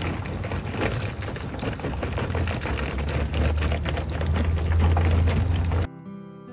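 Fish deep-frying in a wok of hot oil, crackling and sizzling densely, while charcoal briquettes clatter as they are poured from a bag onto a grill. It cuts off suddenly near the end and gives way to a few soft steady tones.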